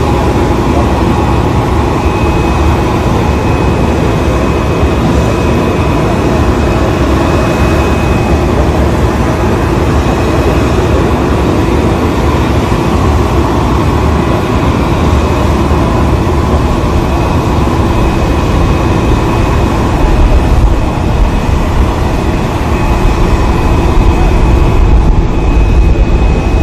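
Steady, loud drone of a parked jet airliner's running machinery, heavy in the lows with a thin high whine over it, growing a little louder near the end.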